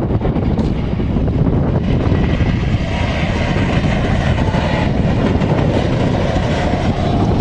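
Jet airliner engines running, a steady loud rumble with a faint high whine over it.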